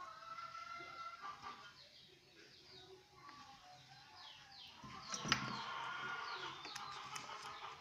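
Birds chirping, a run of short falling chirps that thickens in the second half, with one sharp knock a little after five seconds in.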